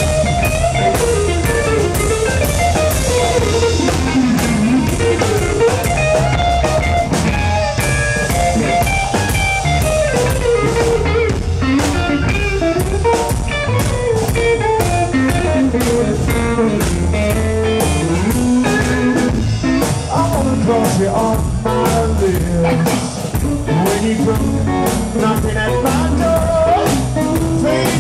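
Live rockabilly trio playing an instrumental passage: a twangy Telecaster-style electric guitar carries the lead line over a drum kit and upright bass.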